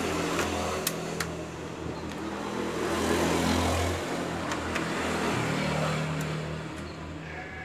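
A motor vehicle's engine running and passing, growing louder toward the middle and changing pitch about five seconds in. A few light clicks come in the first second or so.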